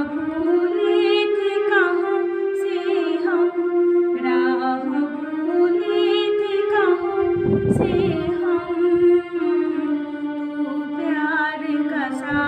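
A woman singing a slow song solo, holding long notes that waver and step up and down in pitch. A brief low rumble comes about eight seconds in.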